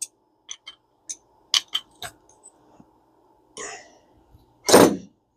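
Small metal clicks and taps from the parts of a vintage Daiwa spinning reel being handled, about half a dozen in the first two seconds. Near the end comes a short vocal sound, like a cough, which is the loudest thing here.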